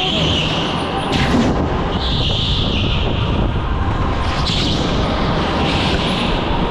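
Go-kart driven at racing speed, heard from on board: a steady rumble from the kart with a higher hiss that swells and fades several times as it takes the corners.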